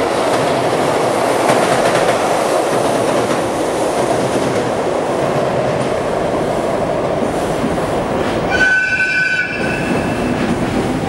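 JR EF65 electric locomotive passing through the station and running away down the line: a steady noise of wheels on rails. Near the end a brief high-pitched tone sounds.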